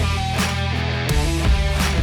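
Background music: rock track with guitar and a steady drum beat.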